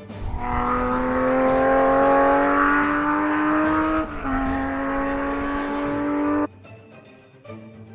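An engine sound effect rises steadily in pitch as it accelerates, dips once about four seconds in like a gear change, and climbs again before cutting off suddenly.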